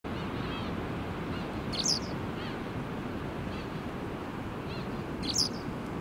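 Japanese wagtail calling: two loud, sharp calls about three and a half seconds apart, with fainter high chirps in between, over a steady low background rush.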